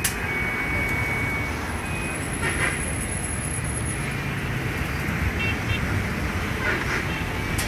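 Steady rumble of road traffic and vehicle engines, with a sharp click at the start and another near the end.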